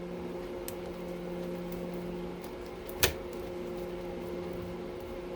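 Steady electric hum, with faint ticks and one sharp metallic click about three seconds in as a screwdriver works a small slotted screw out of a circuit breaker's casing.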